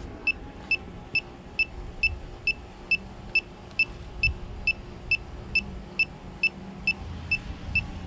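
Handheld electronic refrigerant leak detector beeping at a slow, steady pace, about two short high beeps a second. The rate does not speed up, so the detector is not registering a refrigerant leak at its probe; a hit would make it beep rapidly.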